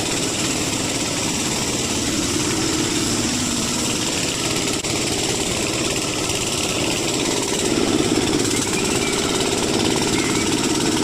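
A machine used in tractor tyre repair running steadily, slightly louder about eight seconds in.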